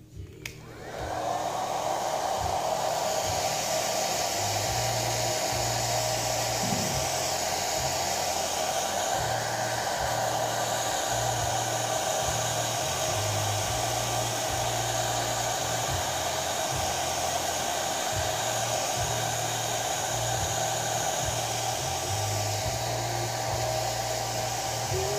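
Handheld hair dryer switched on with a click about a second in, then running steadily, blowing on a wet cat's fur.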